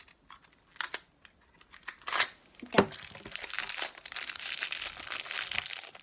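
Crinkling plastic wrapper of a small LOL Surprise toy packet being handled and pulled open. There are a few faint clicks, then a loud crackle about two seconds in and a sharp snap just before three seconds, followed by steady crinkling.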